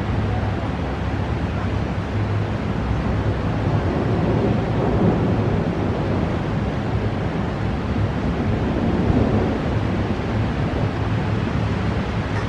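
Thunderstorm: a steady rushing noise, swelling slightly in the middle and again near the end.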